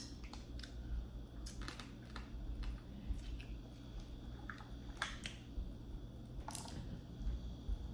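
Boiled crawfish and crab shells being cracked and peeled by hand, with scattered sharp cracks and crackles, the loudest about a second and a half in, around five seconds in and near the end, along with chewing.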